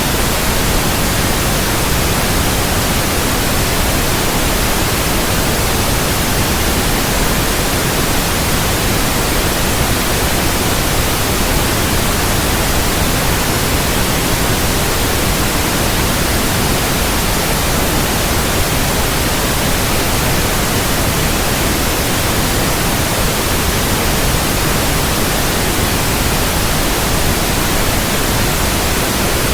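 Steady electronically generated white noise: an even, unchanging hiss spread across all pitches, without a break or variation.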